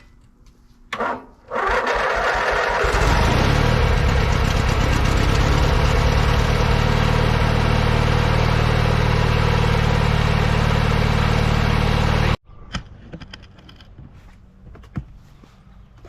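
An engine cranks briefly, catches and starts, then runs steadily at a low idle for about ten seconds before the sound stops abruptly.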